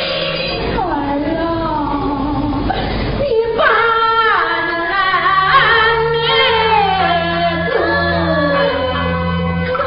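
Huai opera (Huaiju) singing: a solo voice sings a drawn-out line with long sliding pitches, over held notes from the instrumental accompaniment.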